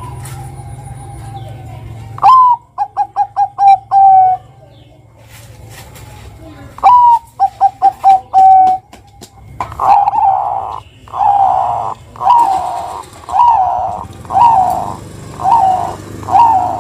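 Zebra dove (perkutut) singing. Two phrases come first, each a rising opening note, then a quick run of about five short notes and a longer held note. From about halfway a steady series of rising-and-falling coos follows, roughly one a second.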